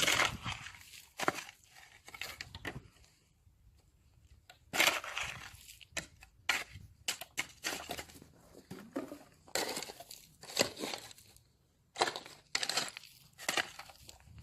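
Shovel working loose soil and sand, scraping in and tipping it into a trench in a run of irregular scrapes and pours, with a short pause near the start.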